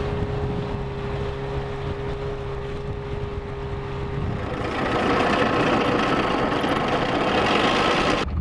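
Boat engine running steadily with a low hum. About halfway through, a louder, even rushing noise takes over and then cuts off abruptly just before the end.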